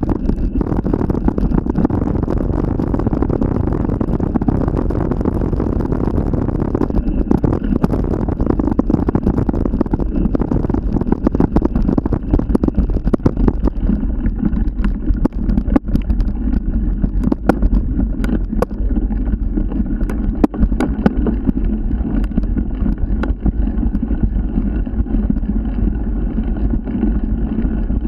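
Steady low rumble of a moving vehicle, with a scatter of sharp clicks and knocks about halfway through.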